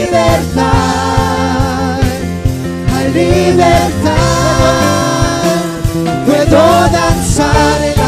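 Live church worship band playing an upbeat gospel song with drums and bass guitar on a steady beat, with several singers singing together over it.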